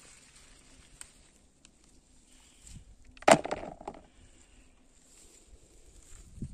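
Pepper plants rustling faintly as they are handled during picking, with one sharp knock about three seconds in.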